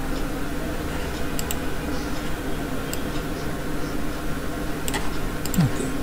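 A few scattered clicks of a computer keyboard, two close together about a second and a half in and more near the end, over a steady low electrical hum. A short low falling sound comes just before the end.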